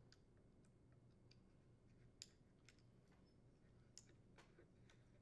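Near silence with faint, scattered clicks of small plastic parts being handled as a Ryobi string trimmer's throttle trigger is fitted back onto its throttle cable. Two clicks stand out slightly, about two and four seconds in.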